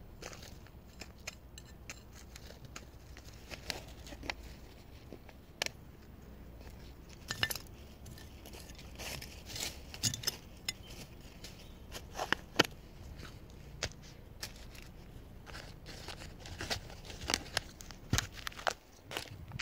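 Irregular clicks, crackles and rustling scrapes of gloved hands working soil, dry leaves and small plastic plant pots.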